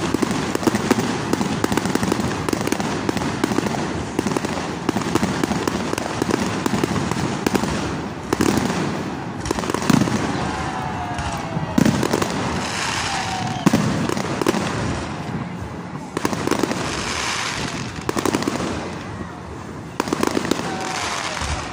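A continuous barrage of aerial fireworks: rapid, overlapping bangs and dense crackling throughout.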